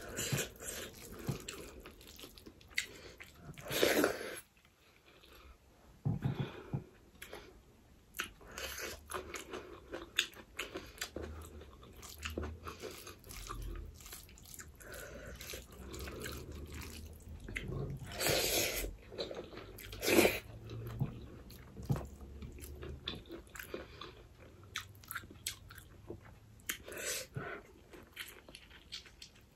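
Close-miked eating sounds of a person eating rice and curry by hand: chewing, lip smacks and small wet clicks going on throughout, with a few louder moments about 4, 18 and 20 seconds in.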